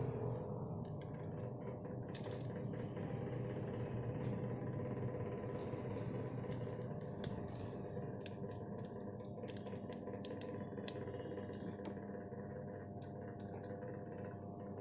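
Steady low workshop hum with scattered light clicks and taps from handling the opened LED TV's panel, the clicks more frequent in the second half.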